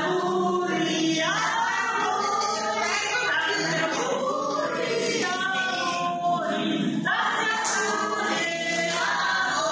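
A group of voices singing a song together, choir-like.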